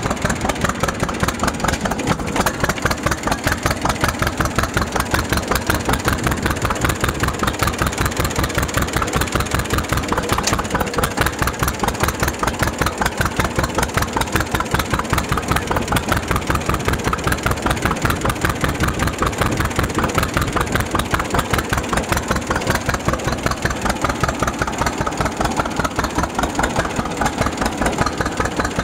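1933 John Deere GPO tractor's two-cylinder engine idling, with a steady, even popping beat.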